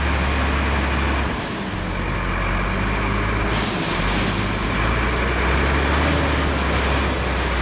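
Heavy farm machinery's diesel engine running steadily with a deep hum. A brighter hiss joins in about halfway through.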